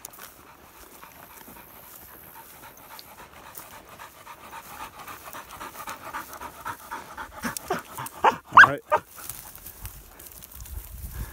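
A Braque Francais pointing dog panting hard, in quick even breaths that grow louder as he comes close; he is overheated from working in hot weather. Several louder, sharper sounds come about eight to nine seconds in.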